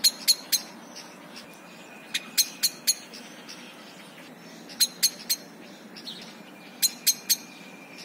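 Common blackbird (Turdus merula) giving sharp 'chink' calls in quick runs of three or four notes, the runs coming about every two seconds.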